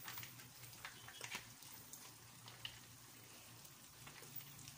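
Faint, near-silent crackling and soft ticks from ground meat and hot dogs cooking in a frying pan as spaghetti sauce is squeezed on, over a low hum.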